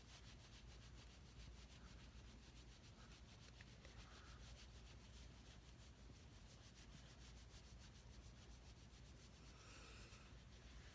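Near silence: room tone with faint soft rubbing, a little more around four seconds in and near the end.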